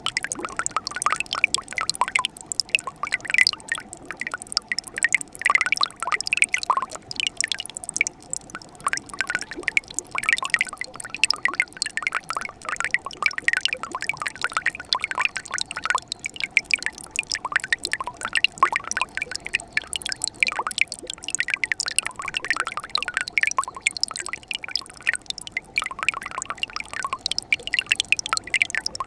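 Mountain valley stream running and trickling: a steady, dense babble of small splashes and drips.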